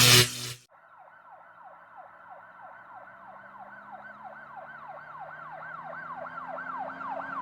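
A siren in a fast yelp: a falling sweep repeats about three times a second over a low steady hum and grows louder as it goes. A loud burst of noise comes first, in the first half second.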